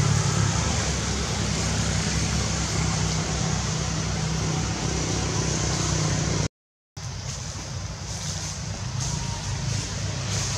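Steady outdoor background rumble with a hiss above it. It cuts out to silence for about half a second past the middle, then carries on slightly quieter.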